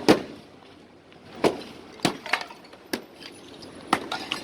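Demolition work: a run of sharp, irregular knocks and breaking crashes, about six or seven in four seconds, the loudest right at the start.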